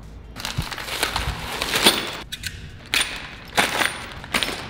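Clear plastic bag of assembly bolts being handled and crinkled: a long rustle for about two seconds, then several short, sharp crinkles.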